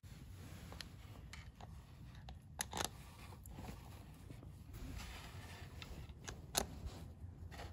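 Faint handling noises of small parts being worked by hand, with a few sharp light clicks, a pair a little under three seconds in and another about six and a half seconds in.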